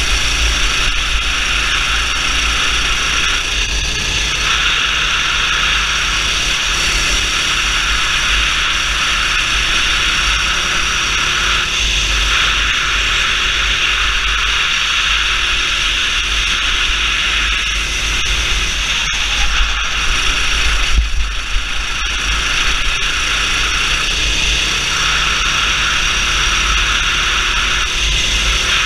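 Wind noise from a kart at speed fills the sound with a steady loud hiss and low buffeting on the onboard microphone. Under it the kart's engine is faintly heard, its pitch rising and falling slowly.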